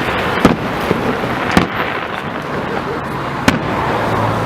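Fireworks salute going off: three sharp bangs of shells bursting, spaced one to two seconds apart, over a continuous crackle.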